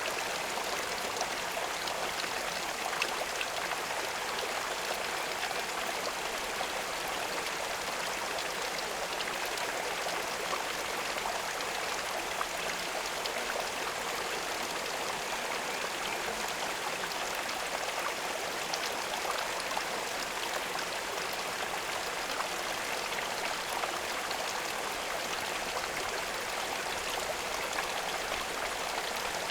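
Steady running water at a pond, an even unbroken rush with faint scattered droplet ticks.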